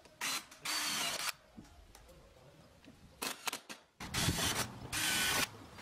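Cordless drill driving screws into a door hinge: short whirring runs in two pairs, one pair about a second in and another near the end, with a few light clicks between.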